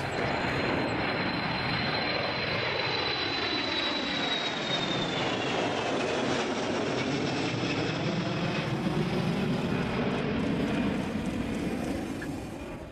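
KC-135 Stratotanker's four jet engines as it flies low overhead. Under the engine noise a high thin whine falls slowly in pitch as the aircraft passes, and the sound fades out near the end.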